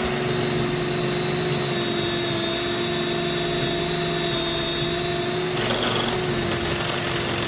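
Power drill running steadily under load, boring into a vending machine's lock. Its even whine breaks briefly about two-thirds of the way through.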